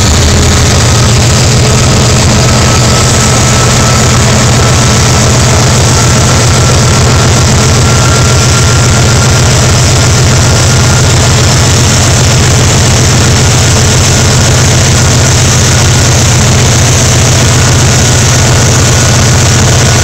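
Class 56 diesel locomotive 56101's Ruston-Paxman 16-cylinder engine running steadily under load test, a loud, heavy, evenly pulsing engine note with a high whine that slowly rises in pitch.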